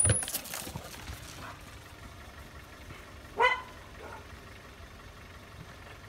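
A West Siberian laika gives a single short, high bark about three and a half seconds in. A few knocks come in the first second, and the rest is faint background.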